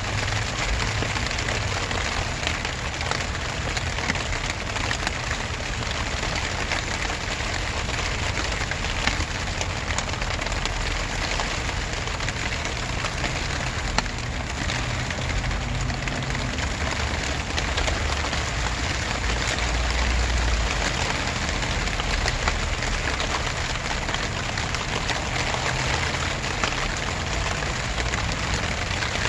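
Steady rain falling: a constant hiss flecked with the ticks of individual drops, over a low rumble.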